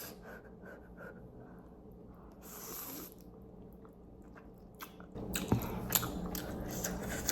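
A person chewing a mouthful of black bean instant noodles close to the microphone: soft at first, then louder with many quick mouth clicks from about five seconds in.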